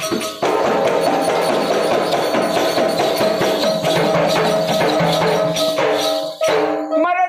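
Instrumental passage of live Marathi gondhal folk music: fast, dense percussion over a steady held note, with a brief break about six seconds in.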